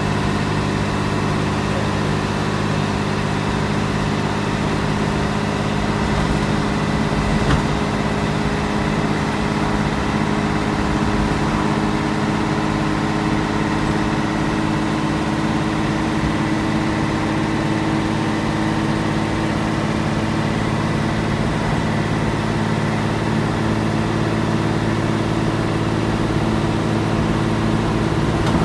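Scania L113CRL bus's rear-mounted 11-litre six-cylinder diesel idling steadily, heard from inside the saloon near the back.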